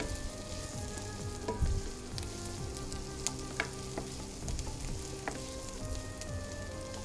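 Chopped onion, garlic, ginger and green chilli sizzling in hot oil in a pan as they soften, with a spoon stirring and clicking against the pan a few times.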